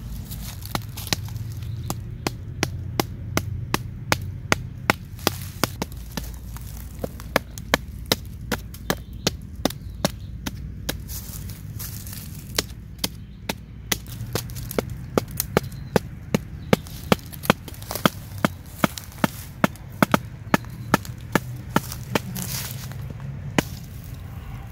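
A blade chopping into green wood, with repeated sharp chops at roughly two a second.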